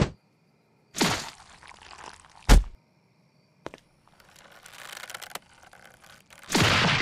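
Cartoon fight sound effects: a noisy burst about a second in, then a sharp, heavy hit at about two and a half seconds. A softer rushing noise follows, and a loud noisy burst near the end.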